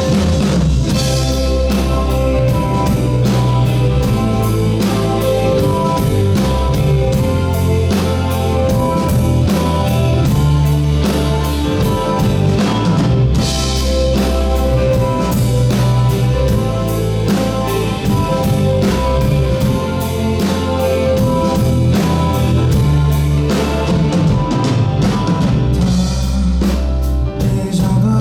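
Rock band playing live without vocals: drum kit keeping a steady beat under guitar and bass, with cymbal crashes about halfway through and again near the end.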